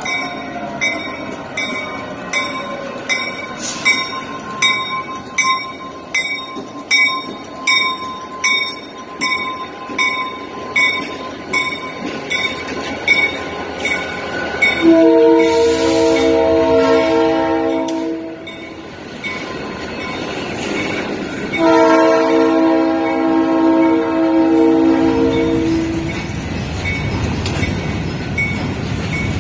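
A grade-crossing bell dings steadily, nearly twice a second, until about halfway through. The Reading and Northern freight locomotive then passes close by, sounding two long blasts on its multi-chime air horn, with a third starting right at the end, over the rumble of the engine and the rolling freight cars.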